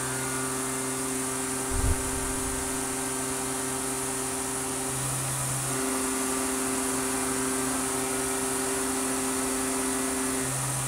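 Tormach CNC mill spindle turning a 1.5-inch Kennametal shell mill at 8000 RPM, face milling an aluminium block: a steady hum and whine over a hiss of cutting, whose tone shifts about five and ten seconds in. A single thump about two seconds in.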